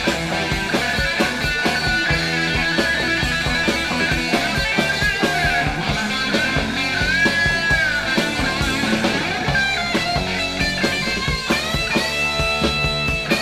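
Rock music played from a vinyl record: a lead electric guitar bends notes over a steady drum beat and bass, then settles into long held notes near the end.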